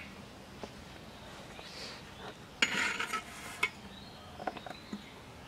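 Metal spatula scraping against an earthenware pan under a cooking roti: a sharp click and a rasping scrape about two and a half seconds in, lasting about a second, then a few light clicks.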